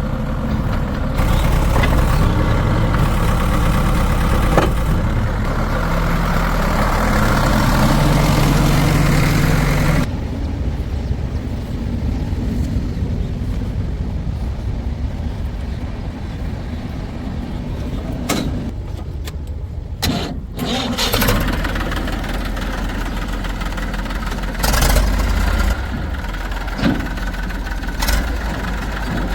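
Heavy diesel machinery engines running: hard-revved for about the first ten seconds, then dropping suddenly to a lower, steadier run, with a few brief knocks near the end.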